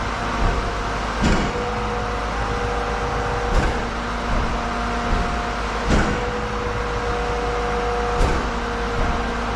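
Heavy vehicle engine running steadily, with a sharp metallic clank about every two seconds.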